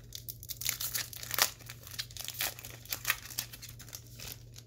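Foil wrapper of a baseball card pack being torn open and crinkled, a run of sharp crackles that is loudest about a second and a half in and dies away near the end.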